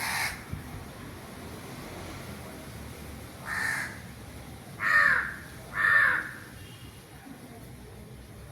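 Crows cawing: four harsh caws, the last two louder and about a second apart.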